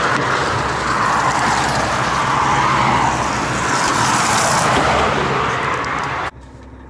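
Semi-truck driving on the road: loud, steady tyre and road noise over a low engine hum. It cuts off suddenly near the end.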